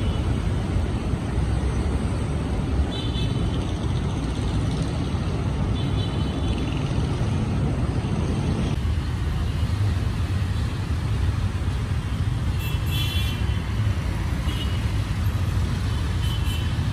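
Steady noise of city road traffic, strongest at the low end, with a few faint short high chirps here and there.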